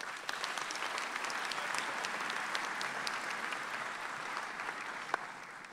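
Large seated audience applauding, a dense spread of hand claps that holds steady and then dies away toward the end.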